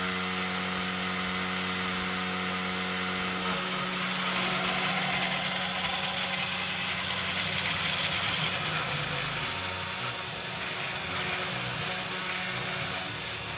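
Small DC motor spindle of a desktop CNC router running steadily at speed, with the stepper motors whirring as the carriage travels across the workpiece. About four seconds in the sound shifts and takes on more hiss.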